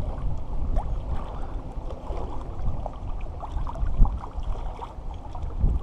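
Shallow water lapping and sloshing around wooden dock pilings over a low rumble, with a single knock about four seconds in.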